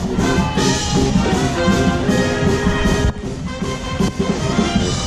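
Loud music with brass instruments playing sustained melodic lines over a steady low beat, dipping briefly about three seconds in.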